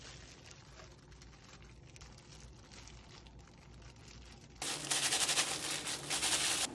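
Thin plastic food-prep gloves rustling softly as gloved hands press shaped cooked rice into place, then a louder stretch of close crinkling about four and a half seconds in as the hands scoop and squeeze rice from the bowl, cutting off suddenly at the end.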